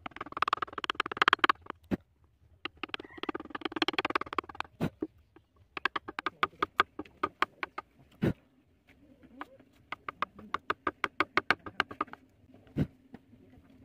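Hand-held carving chisel cutting into wood: two stretches of scraping cuts in the first five seconds, then a quick run of short crisp cuts, about four or five a second, with two louder knocks.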